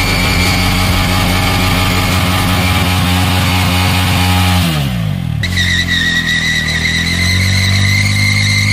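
Motorcycle engine held at high revs while the rear wheel spins on a petrol-wet road in a burnout. About halfway through the revs drop away. After an abrupt cut the engine revs up again.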